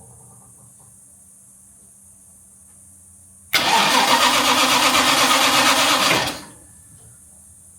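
Jaguar MKII's straight-six engine cranked on the starter motor for about three seconds, stopping abruptly without catching and running. It is a start attempt on an engine with a starting problem, made with a freshly fitted distributor cap and rotor.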